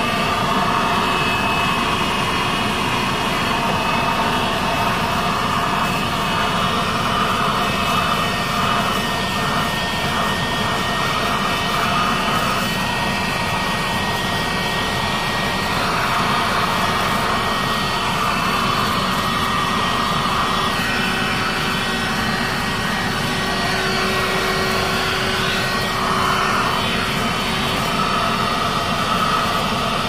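Philips FC6141 12-volt handheld car vacuum cleaner running steadily with its brush attachment, a continuous motor whine over rushing suction air as it picks up dust from the car floor mat. The airflow sound shifts a little from moment to moment as the nozzle moves over the mat.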